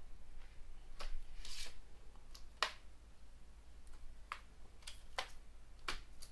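Hands handling a washing machine control board and its test wiring: a rustle of wires and about half a dozen sharp plastic clicks as connectors are worked loose and pulled off.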